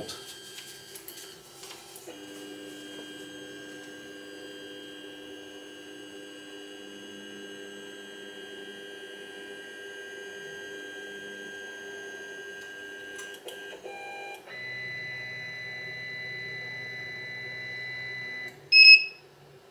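Sunlu S8 3D printer's stepper motors whining steadily as the axes move, the pitch changing partway through, then one loud, short electronic beep from the printer near the end.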